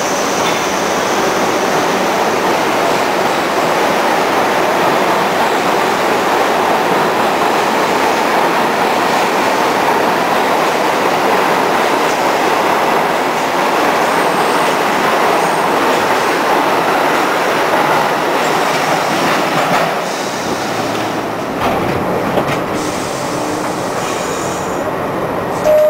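R62A subway train pulling out of an underground station alongside the platform, a loud, steady noise of wheels on rail. About 20 seconds in the noise drops abruptly to a quieter train sound.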